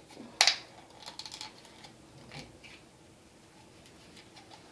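Straw curlers and rubber bands being worked out of hair by hand: one sharp click about half a second in, then a quick run of small clicks and rustles that fades out.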